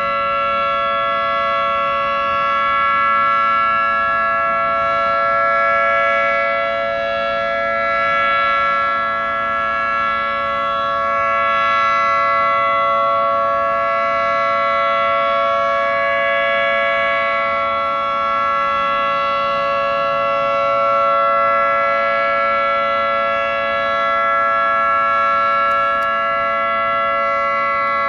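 Federal Signal 2T22 dual-tone electromechanical siren sounding a steady Alert tone, a chord of several held pitches that swells and fades every few seconds as the siren head rotates. It sounds very healthy.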